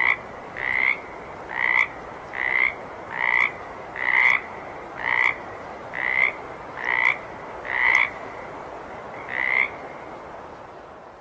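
A water frog croaking in a steady series, one short swelling croak about every 0.8 seconds, over a faint background hiss. The croaks stop about ten seconds in, and the hiss then fades out.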